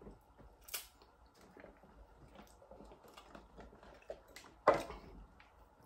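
Close chewing and mouth noises of a person eating a fish sandwich, with small wet clicks. There is a sharp click just under a second in and a much louder sudden sound near the end.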